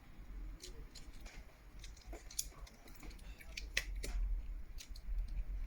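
Scattered small, sharp clicks and light taps, about a dozen, from handling an opened smartphone and its parts, over a low steady hum.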